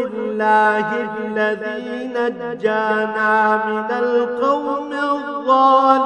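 A man reciting the Qur'an in Arabic in the melodic tajweed style, holding long, drawn-out notes with slight ornamental wavering and brief pauses for breath.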